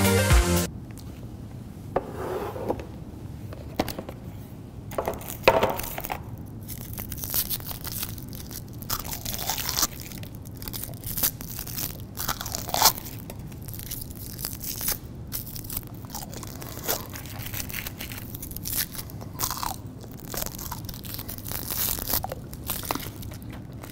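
Crinkly candy wrappers being twisted and pulled open in the hands, a run of short irregular crackles, with crunching and chewing of the candies.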